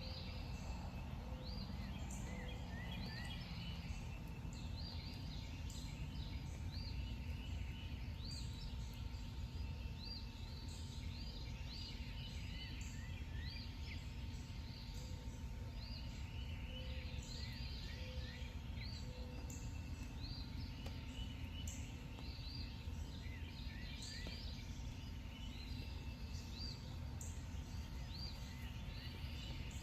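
Night ambience: many small creatures chirping in short, quick, high calls, over a steady low rumble.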